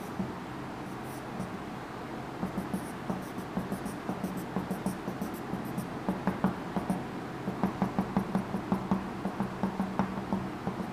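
Felt-tip marker scratching and squeaking on a whiteboard as short hatching lines are drawn, a quick run of short strokes starting about two seconds in. A steady low hum sits underneath.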